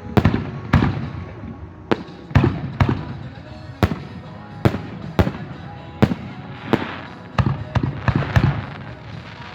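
Fireworks going off: a string of sharp bangs at irregular intervals, roughly one to two a second, each followed by a low rumbling echo.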